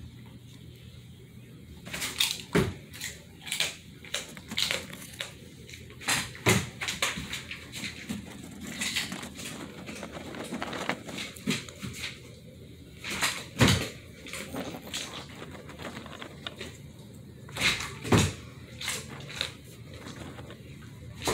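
Irregular clicks and taps of a German Shepherd's claws on a bare hardwood floor as the dog moves about, with a few louder thumps in between.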